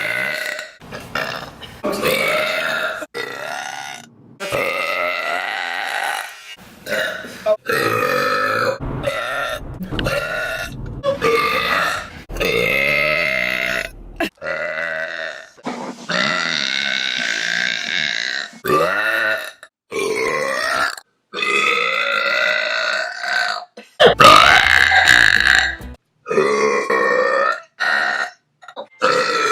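A woman's long, drawn-out burps, about a dozen in quick succession, each cut off abruptly before the next. Some are held for two seconds or more, and the loudest comes near the end.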